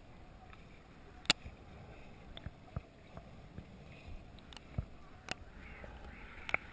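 Muffled underwater sound picked up by a camera submerged in salt water while snorkeling: a faint, steady low rumble of water with sharp clicks and knocks scattered through it, about seven of them, the loudest about a second in.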